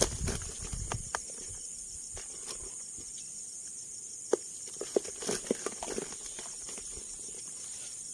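Steady high-pitched drone of insects, with scattered clicks, knocks and rustles, the sharpest about four and five seconds in.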